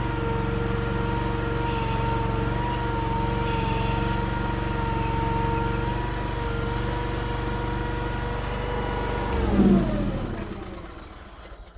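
Honda gas engine of a mini skid steer running steadily at high revs, then shut off about nine seconds in, its pitch falling as it winds down to a stop.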